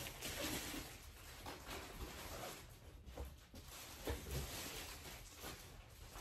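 Soft rustling and shuffling of yarn being handled and carried, with a few dull bumps about four seconds in.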